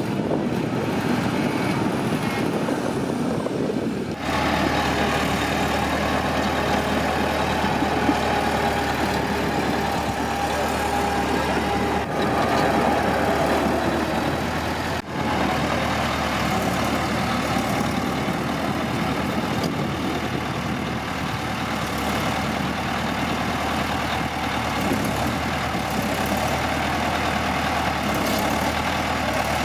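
Heavy diesel machinery running steadily, with brief breaks about four seconds in and again about halfway through.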